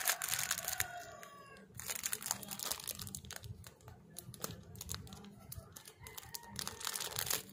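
Plastic wrapping crinkling in an irregular run of sharp crackles as it is pulled and unwrapped by hand.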